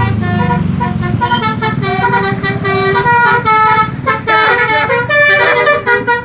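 Indonesian bus 'telolet' musical horn playing a tune of quick stepped notes, over the low rumble of the bus's engine in the first second or so.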